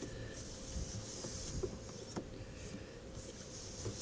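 Soft wiping of a cloth rubbed over a plastic hatch frame, with a few faint small clicks.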